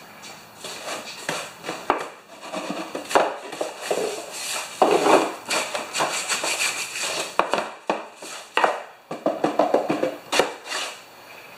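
Stiff-bristled hand brush scrubbing dried grass clippings off the underside of a lawn mower deck in quick, uneven strokes, with a few sharper knocks among them.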